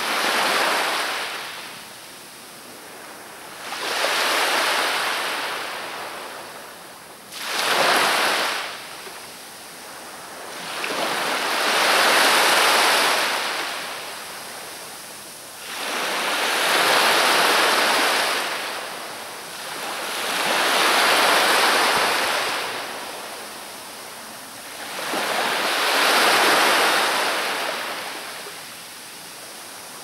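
Sea surf: waves breaking and washing up the shore one after another, about every four to five seconds, each swelling and fading away, seven in all.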